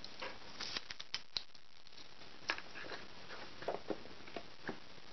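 Light clicks, taps and rattles of a telescoping selfie stick being handled and put back into its cardboard box on a table, scattered irregularly, with a cluster about a second in and a few more near the end.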